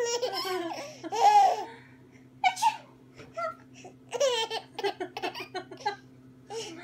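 A baby laughing hard at a sneeze, in bursts of giggles: a long run at the start, a short one a couple of seconds in, and another run later on.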